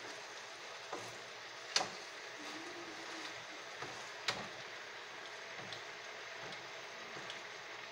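Chicken pieces frying in oil in a nonstick pan, a steady sizzle, with a spatula knocking against the pan a few times as the pieces are turned over; the loudest knock comes about two seconds in.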